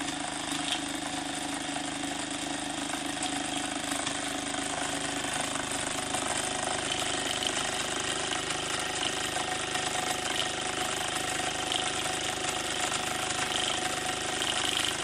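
Restored prewar Mamod/Hobbies SE3 toy steam engine running steadily under steam on its first steaming, its oscillating brass cylinder chuffing in a fast, even rhythm with a constant steam hiss.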